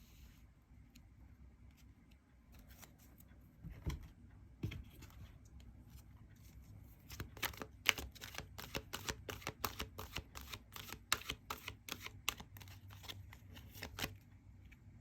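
Tarot cards being handled on a table: two soft knocks, then a run of quick clicks and taps, about three or four a second, for several seconds.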